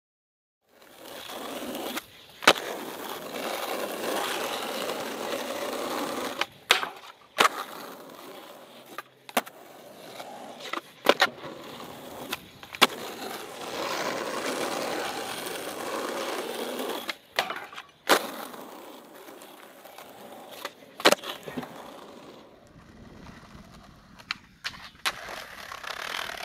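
Skateboard wheels rolling over pavement in long steady stretches, broken by about a dozen sharp clacks of the board popping and landing during tricks.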